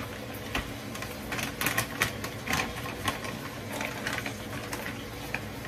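Frozen strawberries being handled: scattered light clicks and knocks at irregular intervals, over a low steady hum.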